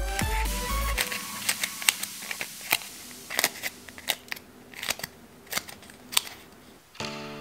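Fingers flicking and pressing the cardboard strips of a homemade cardboard-tube fidget toy: a string of irregular light clicks and taps. Background music stops about a second in and starts again just before the end.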